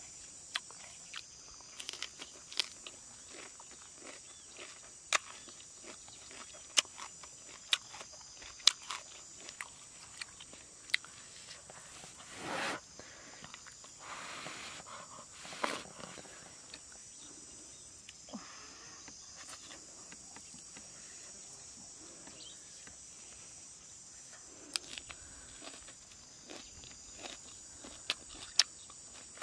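Close-up eating sounds: grilled fish pulled apart by hand and chewed, with many sharp clicks and smacks and a few louder crunching swells about halfway through. Behind it runs a steady high buzz of insects.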